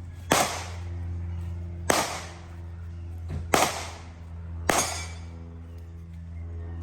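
Four shots from a Desert Eagle .50AE pistol at uneven intervals of about one to two seconds, each with a short trailing echo, over a steady low hum.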